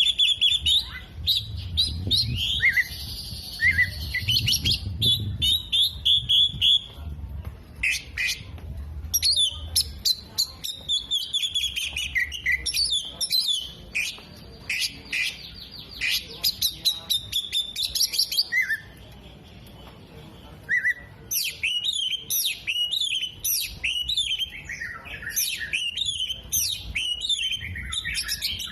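Oriental magpie-robin singing a fast, varied song of chirps, trills and whistles, with mimicked calls of sunbirds, bulbuls and lovebirds woven in. The song eases into a brief lull about two-thirds of the way through, then picks up again.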